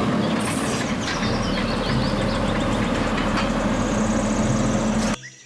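A garbage truck's engine runs steadily with a low hum, and chirps sound over it for a while. It cuts off suddenly about five seconds in.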